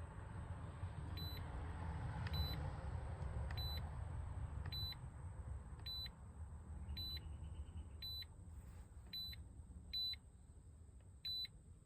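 Short, high electronic beeps repeating about once a second, from the car's warning chime or the OBD2 code scanner, over a low rumble that fades out about halfway through.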